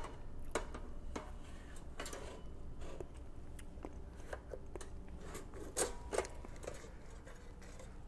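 Light clicks and knocks of a plastic Taco Toaster holder and a corn tortilla being handled in a stainless steel toaster's slot. Two sharper clicks come about six seconds in.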